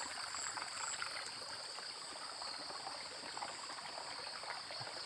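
Flood-swollen stream water running steadily, with a steady high-pitched whine over it.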